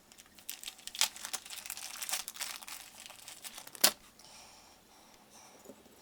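Plastic crinkling and rustling as it is handled, with one sharp click a little before four seconds in, then fainter rustling.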